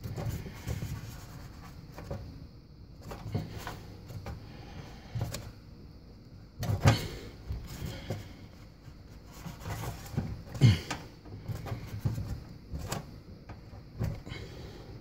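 Hand turning the water supply line's compression nut off the dishwasher inlet valve, with irregular knocks and scrapes of hand and fitting against the sheet-metal frame; two louder knocks, about halfway through and a few seconds later.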